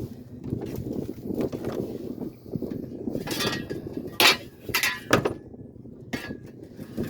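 A series of knocks and thumps from handling a just-caught redfish while it is laid out and measured for length, the loudest about four seconds in, over a low steady rumble.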